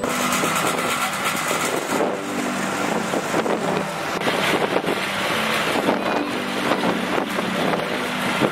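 An engine running steadily, with wind buffeting the microphone.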